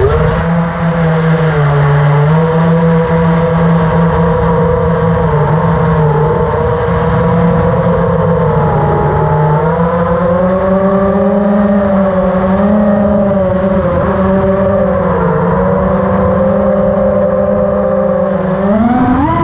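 A 5-inch FPV racing quad's four brushless motors (Lumenier 2350KV) spinning DAL Cyclone 5050 props, heard from the onboard camera: a steady buzzing whine whose pitch shifts up and down with the throttle and climbs sharply near the end.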